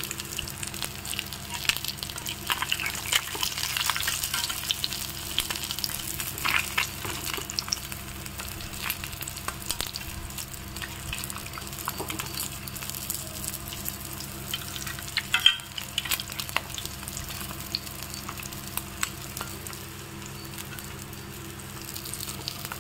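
Sankara (red snapper) pieces shallow-frying in sesame oil on an iron dosa griddle: a steady sizzle with scattered crackles and pops, and the scrape of a metal dosa spatula turning and lifting the fish. The sizzle has settled, the sign that the fish is cooked through, and the crackling thins out toward the end.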